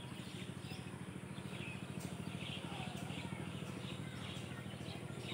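Small birds chirping in short, repeated calls over a steady low hum.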